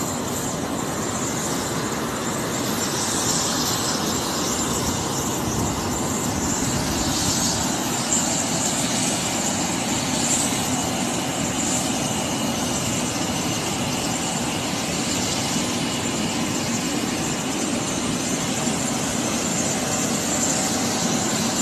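Steady engine and vehicle noise with faint high-pitched whines.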